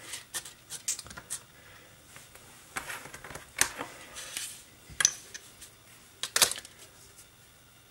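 Workbench handling: a sheet being shifted on the cutting mat and a steel rule being picked up and laid on it, giving scattered light clicks and rustles. The sharpest metallic clicks come about five and about six and a half seconds in.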